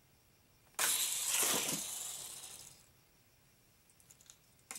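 A Hot Wheels launcher fires a die-cast car with a sudden snap about a second in. The car's plastic wheels rolling down the plastic track make a rushing noise that fades away over about two seconds. A few light clicks follow near the end.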